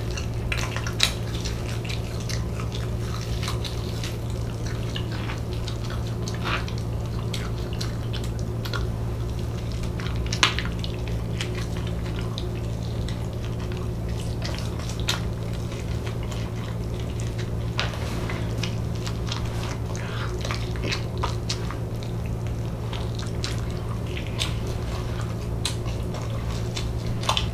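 Close-miked chewing of fried chicken: wet mouth sounds with scattered sharp clicks and smacks, over a steady low hum.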